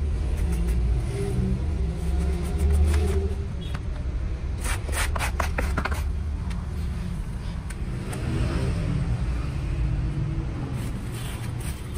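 A steady low rumble, with a quick run of clinks and clatters about five seconds in, and a few more later, as lead-acid battery plates are handled and dropped onto a pile.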